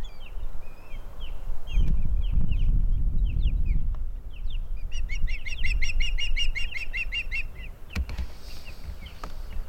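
Ospreys calling: short, high whistled chirps that break, about five seconds in, into a fast run of about eight chirps a second lasting between two and three seconds, over a low rumble of wind on the microphone.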